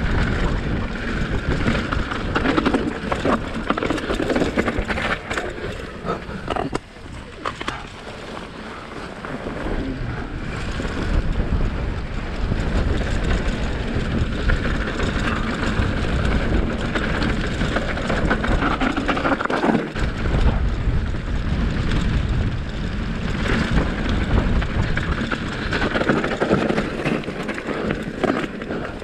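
Mountain bike being ridden along a trail, heard from an on-bike action camera: a steady rush of wind and tyre noise with frequent clatters and knocks from the bike over rough ground, easing for a few seconds about seven seconds in.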